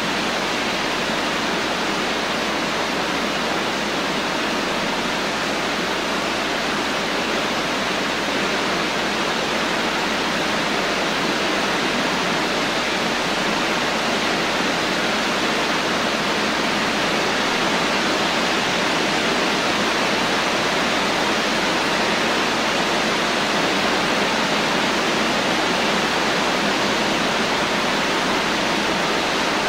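Steady rain falling, an even hiss with no breaks and no separate drops or thunder.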